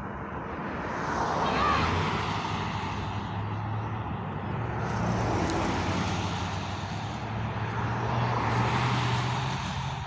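Traffic passing on a highway: tyre and engine noise swells and fades about three times as cars go by, over a low steady engine hum. No horn is heard.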